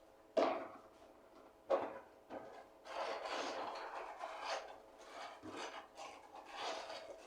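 Two sharp knocks, then continuous rubbing and scraping from hands working with food and kitchen things.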